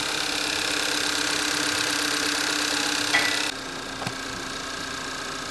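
Volkswagen Tiguan engine idling steadily just after its first start on a newly replaced start button. The sound drops noticeably about three and a half seconds in, just after a brief sharp sound, and a single click follows.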